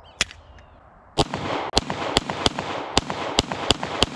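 Ruger 57 pistol in 5.7x28mm fired rapidly: a single sharp click, then, about a second in, nine shots in quick succession, roughly a quarter to half a second apart. The pistol cycles without jamming.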